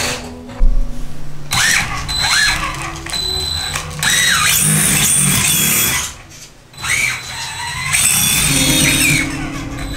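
Small electric motors of RC cars whining, the pitch rising and falling again and again as the throttle is blipped, over background music with stepped bass notes. The sound drops out briefly twice.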